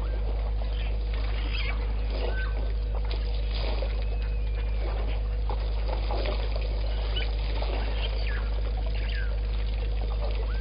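African elephants drinking at a waterhole: water trickling and splashing as their trunks dip in and pour out, with scattered short bird chirps, over a steady low hum.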